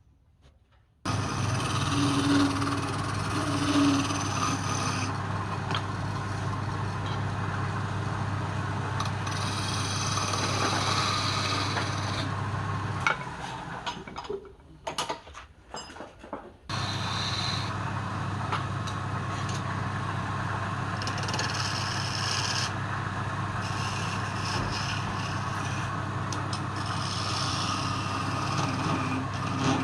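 Wood lathe motor running with a hum, while a turning tool scrapes and cuts the spinning workpiece in spells. The sound breaks off and stutters for a few seconds about halfway, then carries on.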